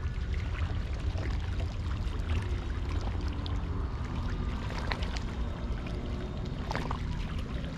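Sea water washing and trickling around rocks, with small crackles and splashes over a steady low rumble.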